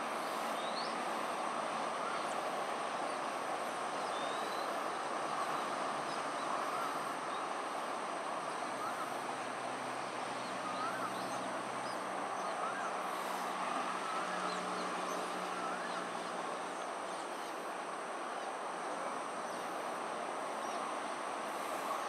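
Steady outdoor background noise, with faint, short rising chirps scattered through it and a low hum that comes in for a few seconds around the middle.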